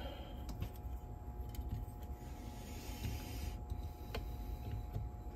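Small clicks and a brief rustle of hands working on a cassette deck's belt and drive mechanism, over a steady low hum.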